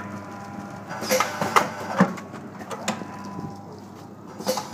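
Liquid sachet packing machine running: a steady hum, with several sharp clacks at irregular intervals and a louder one near the end.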